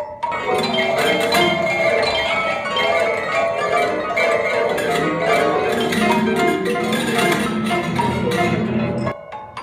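Prepared piano played in a dense flurry of short, bell-like and percussive notes, its strings muted and altered so that it sounds like mallet percussion. The flurry starts about half a second in and drops away abruptly near the end, leaving a few sparser repeated notes.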